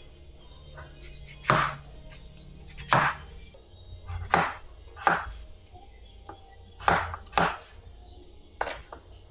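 A series of sharp knocks, about seven short hard impacts at uneven spacing.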